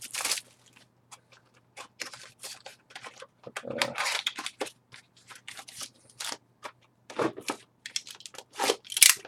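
Scattered crinkling, tapping and tearing of cardboard and foil wrapping as trading card boxes are handled and opened, in short irregular bursts.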